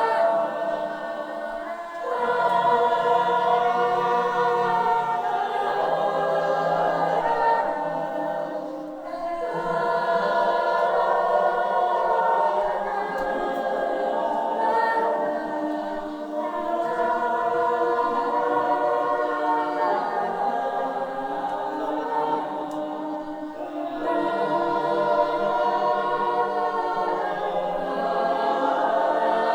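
A choir singing long, held chords in several voice parts, phrase after phrase, with short breaths between phrases about every seven seconds.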